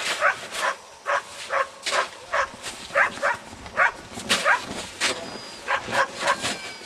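Dogs barking, a quick irregular run of short barks about two a second.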